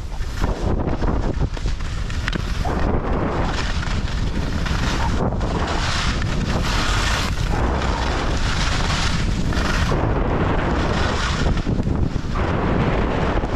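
Wind buffeting the microphone: a loud, constant low rumble with hissing surges that swell and fade every second or two.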